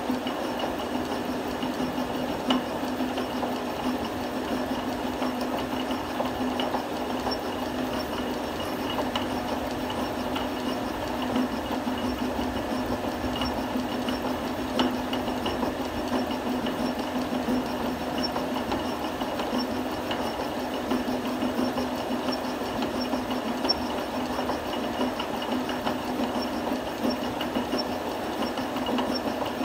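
A metal lathe running steadily while a spinning thread tap cuts teeth into a gear blank, hobbing a worm wheel as the blank turns against it. The lathe gives a steady hum under a dense cutting noise, with a few faint sharp ticks.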